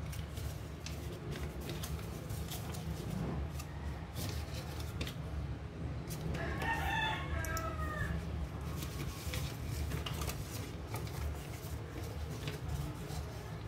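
A rooster crows once, about halfway through, a call lasting around two seconds. Around it run the crackles and taps of paper being creased by hand, over a steady low hum.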